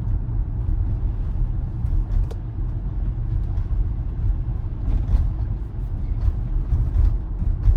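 Steady low road and tyre rumble inside the cabin of an electric Tesla Model Y driving over a snowy road, with a few faint clicks and knocks.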